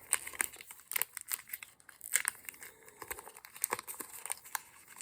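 Crinkling and crackling of a foil Pokémon booster pack wrapper being handled, in many short irregular crackles.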